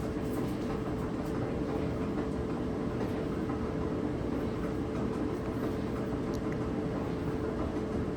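Clothes dryer running with its drum turning, a steady rumble over an even hum. This is the wobbling noise of a worn drum support roller, before replacement.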